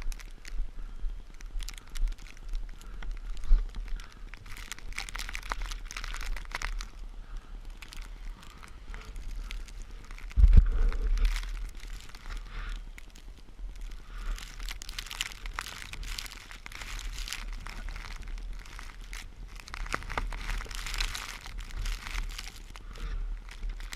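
Footsteps crunching through snow in an irregular pace, over a steady low rumble, with one loud thump about ten seconds in.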